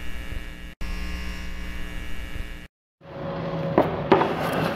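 Electrical hum of neon signs switching on, a steady buzz of many tones that cuts out for an instant about a second in and stops abruptly after about two and a half seconds. After a short silence comes a quiet workshop's background noise with two sharp knocks near the end.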